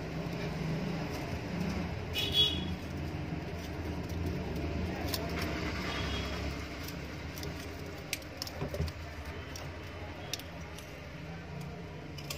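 Faint rustling and light clicks of enamelled copper winding wire being pressed into the slots of an electric motor's stator by hand, over a steady low background rumble.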